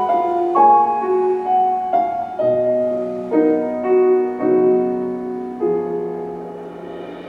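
Solo piano playing the closing phrases of a slow ballad after the singing has ended, notes struck one after another and left to ring, growing quieter toward the end.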